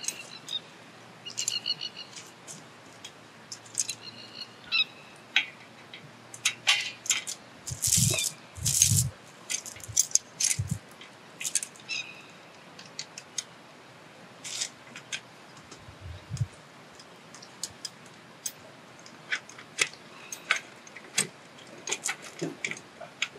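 Steel chain links clinking and rattling in irregular bursts as fence-strainer chains are handled and hooked on, with a few dull thumps along the way.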